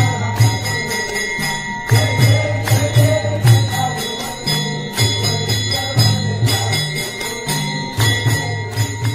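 Devotional aarti music with bells ringing and a steady clapped beat, over a low repeating melody.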